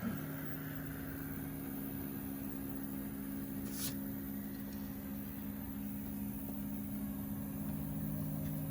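LowRider v3 CNC's stepper motors running at constant speed through one long straight move, a steady hum at a few fixed pitches.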